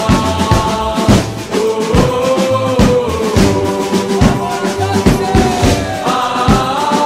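Football ultras chant: a group of voices singing a drawn-out melody over a regular drum beat.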